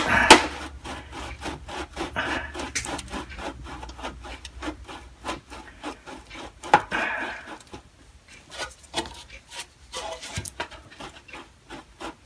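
A long pin stuck fast in an old Craftsman hip-roof steel toolbox being worked out by hand, grating metal on metal in quick, uneven short strokes. There are a couple of sharper knocks, one at the very start and one about seven seconds in.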